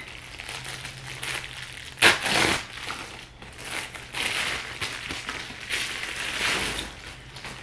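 Plastic Amazon mailer bag being torn open and handled: a sudden loud rip about two seconds in, then crinkling and rustling as a hand reaches into the bag.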